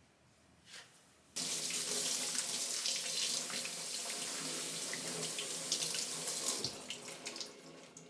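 A water tap is turned on about a second in and runs into a sink, then is shut off about two seconds before the end, leaving a few drips and splashes.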